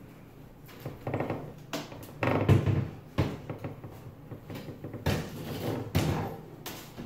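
Knocks, scrapes and rattles of an electric cooktop's sheet-metal housing being lifted out of its countertop cutout and turned over, with the loudest knock about two and a half seconds in.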